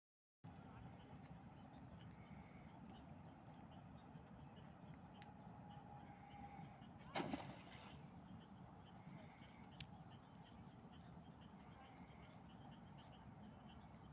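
Faint outdoor insect ambience: a steady high-pitched insect drone with quieter chirps repeating every second or two, and one brief sharp sound about seven seconds in.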